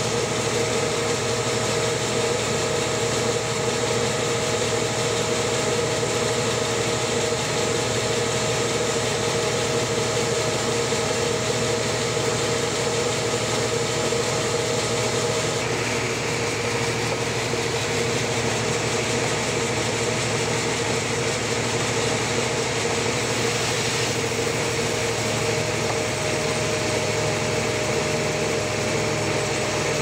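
A sawmill running steadily, with a constant loud mechanical drone and hum, as it works a large trembesi (rain tree) log.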